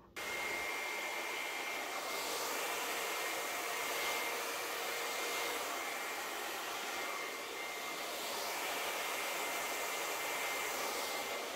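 Blow dryer switched on and running steadily, a rush of air with a thin high whine, blowing wet fluid acrylic paint across a record; the rush swells and eases a little several times.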